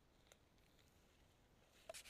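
Near silence, with a faint click about a third of a second in and a few faint clicks near the end.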